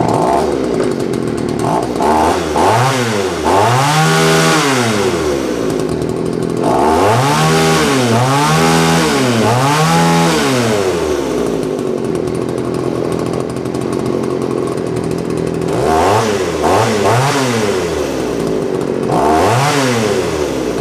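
Poulan Counter Vibe 3400 two-stroke chainsaw running, revved up and back down several times in quick bursts, with steady idling between the revs. The saw has been brought back to running with fresh fuel.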